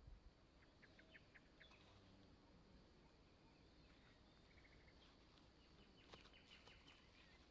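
Near silence outdoors, with faint, distant bird chirps: a few short calls about a second in and a quick run of chirps near the end.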